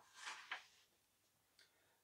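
Page of a paper picture book being turned: a faint paper rustle in the first half second, then near silence.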